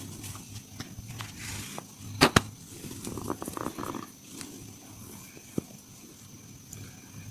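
Hands working through an upper-body massage: soft rubbing and light taps, with two sharp, loud strikes in quick succession a little over two seconds in and a single sharp click a few seconds later.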